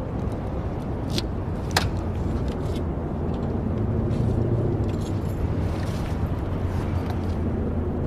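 Car sounds: a steady engine rumble with a couple of sharp clicks about a second and a half in.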